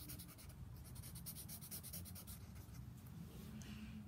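Sharpie marker tip scratching on paper in quick repeated strokes as shapes are drawn and filled in, stopping a little past halfway.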